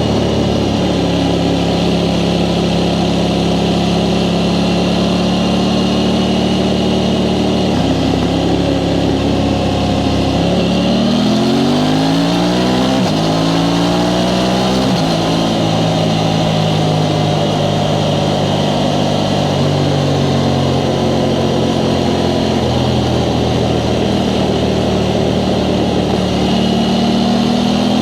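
Aprilia Tuono 660 Factory's parallel-twin engine through its stock exhaust, running at a steady pace. About ten seconds in it accelerates through three quick gear changes, the pitch climbing and dropping back at each one. It then settles to a steady note and starts to rise again near the end.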